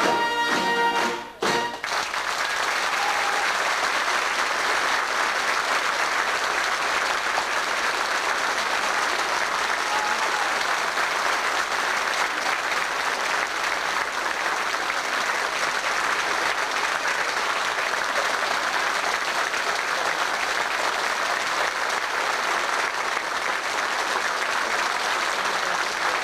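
A brass and woodwind band's closing chord breaks off about a second in, then the audience applauds steadily.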